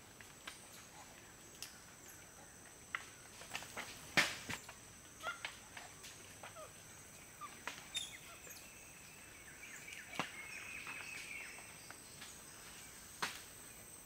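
Rainforest ambience: a faint steady high insect drone, scattered sharp clicks and snaps, and a few short bird chirps, with a wavering call about ten seconds in. The loudest thing is a snap about four seconds in.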